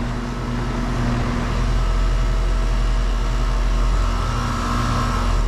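Goodman GSH13 heat pump outdoor unit running in heat mode: the scroll compressor's steady low hum under the rush of the condenser fan.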